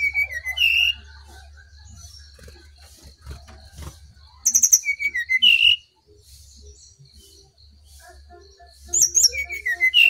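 Song of the brown-chested jungle flycatcher (sikatan rimba dada coklat, SRDC): the same short phrase three times, a quick burst of high notes dropping into a few lower whistles, the last phrase starting near the end. It is a lure recording meant to set caged birds singing. Fainter birds call between the phrases over a low hum.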